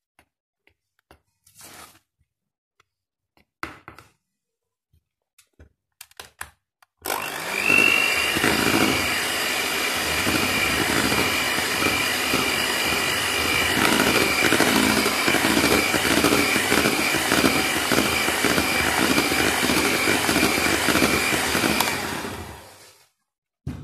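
Electric hand mixer beating cake batter: it switches on about seven seconds in with a steady whine and runs evenly for about fifteen seconds, then stops shortly before the end.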